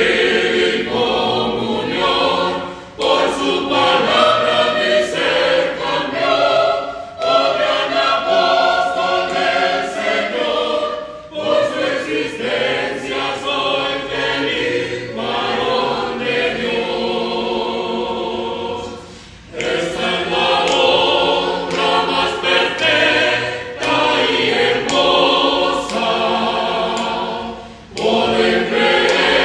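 Church choir singing a hymn, phrase after phrase, with short breaks between phrases every few seconds.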